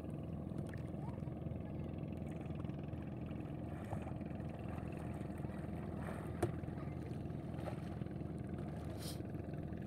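Steady low drone of a small boat's engine running, with a few faint splashes.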